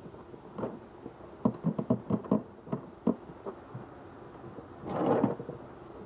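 Hollow plastic knocks and clicks as a PVC pipe fitting is handled and pushed into a hole cut in a plastic cooler lid, in a quick cluster in the middle. It ends with a louder half-second scrape of plastic rubbing plastic near the end.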